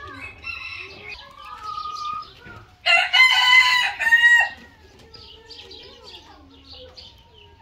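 A rooster crows once, loudly, about three seconds in, for about a second and a half. Hens cluck softly before and after it.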